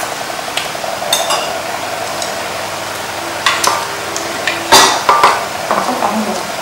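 Chopsticks and spoons clinking against bowls and a metal wok as people eat: scattered sharp clicks, the loudest about five seconds in.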